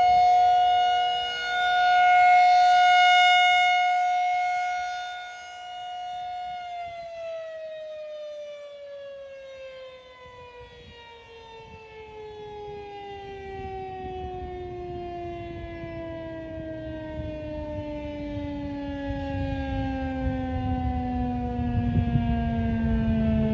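Federal Signal 2001 rotating outdoor warning siren holding its steady test tone. The sound swells and fades as the rotating head sweeps past. About six seconds in it begins winding down, its pitch falling slowly and steadily.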